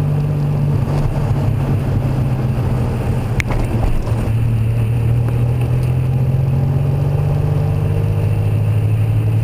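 DeLorean DMC-12's V6 engine and road noise heard from inside the cabin while driving, a steady low drone that drops slightly in pitch about four seconds in. A single sharp click sounds about three and a half seconds in.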